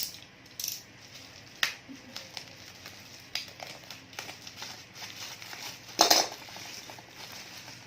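Scattered light clicks and clinks from a laptop and small tools being handled on a work surface, with a louder clatter about six seconds in.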